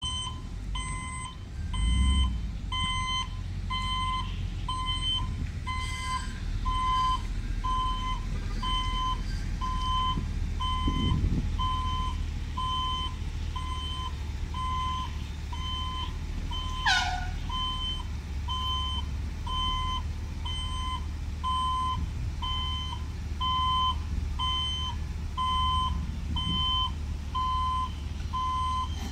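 Electronic warning beeper sounding a steady, evenly spaced beep, about one and a half beeps a second, over a low rumble, with a short falling whistle about halfway through.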